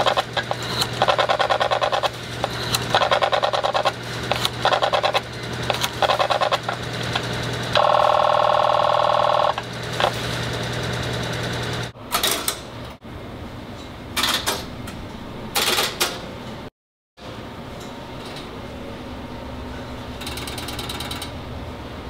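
Electromechanical telephone switching equipment at work: a steady hum with bursts of fast, even clatter, then, from about halfway, the sharp clicks and ratcheting clatter of Strowger step-by-step switches stepping as a number is dialed through the office.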